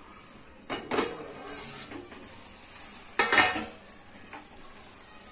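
Steel lid and pan clattering as the lid is taken off a kadhai of cooking rice: two short metallic clanks with a little ringing, about a second in and again after three seconds, over a faint steady sizzle of the rice cooking.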